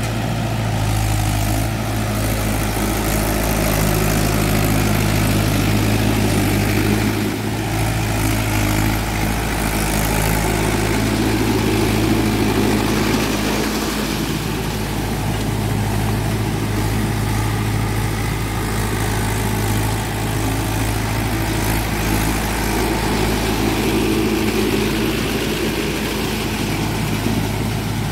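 Swaraj 843 XM tractor's three-cylinder diesel engine running steadily at an even pitch under load, pulling a cultivator on cage wheels through wet paddy mud.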